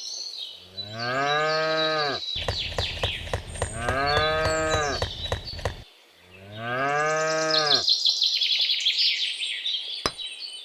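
A cow mooing three times, each a long call that rises and then falls, with birds chirping high above it and a rapid clicking in the middle.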